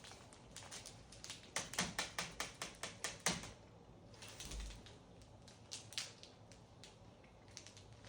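Close-up mouth sounds of eating a milk chocolate bar: a quick run of small sharp clicks, about six a second, then a few scattered clicks near the end.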